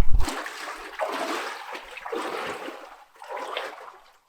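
Water splashing and sloshing in uneven surges about once a second, as of boots wading through flooded ground over a foot deep.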